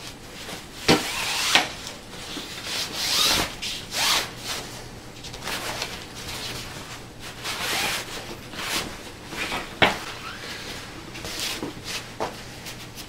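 Green screen fabric rustling in irregular bursts as it is handled, spread and shaken out by hand, with a few sharp knocks in between.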